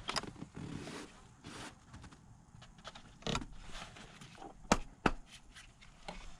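Hands handling plastic ignition-coil parts on a switched-off engine: scattered light scrapes and small clicks, with two sharper clicks about half a second apart near the end.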